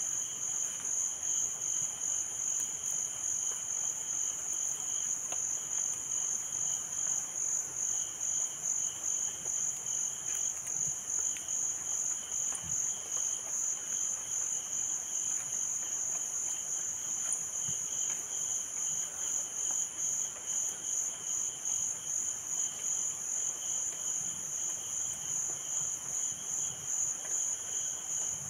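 Insects chirring without a break: a high, evenly pulsing trill, with a fainter second trill lower down.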